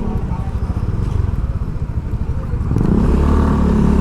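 Small vehicle engine running with a rapid low pulsing, growing louder and steadier in pitch about three-quarters of the way through as it picks up speed.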